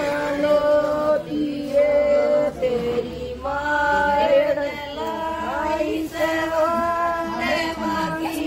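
Women singing together, a wedding song sung in long held phrases with short breaks between them.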